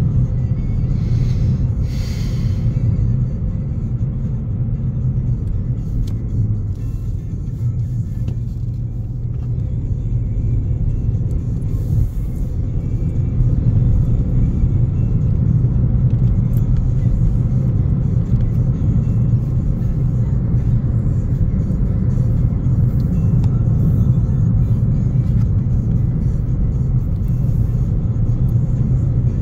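Steady low rumble of a car's road and engine noise heard from inside the moving car, with a brief rise in hiss about a second or two in.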